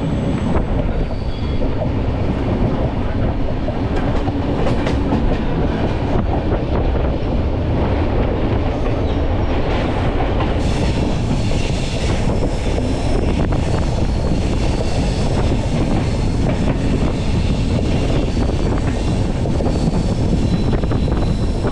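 Uday Express passenger train running on the rails: a steady rumble of wheels and coach, with occasional clicks and clatter.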